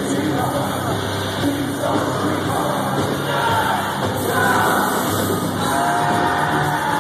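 Live heavy metal band playing loudly with sung vocals, heard from among the audience.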